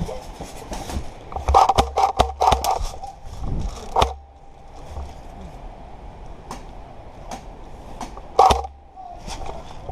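A quick cluster of sharp clicks and knocks about one and a half to three seconds in, then single loud knocks near four and eight and a half seconds in.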